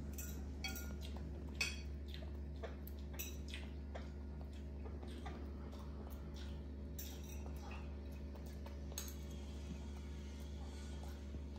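Scattered light clinks and scrapes of metal tableware as a monkey picks food from a stainless steel bowl and a fork works on a plate, one sharper clink about a second and a half in, over a steady low hum.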